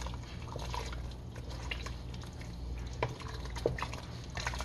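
A wooden spoon stirring chunky soup broth in a stainless steel pot: liquid sloshing, with a few sharp knocks of the spoon against the pot about three seconds in. A steady low hum runs underneath.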